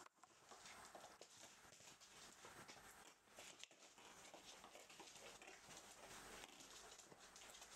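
Faint pattering and clicking of rough collie puppies' claws and paws on a laminate floor as they scamper and play.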